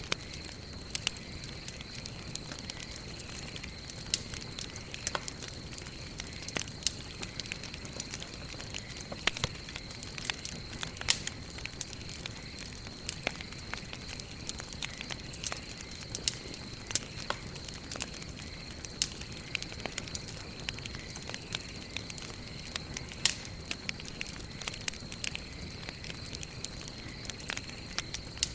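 Wood burning in a campfire, crackling steadily with irregular sharp pops and snaps, a few of them much louder, over a soft hiss.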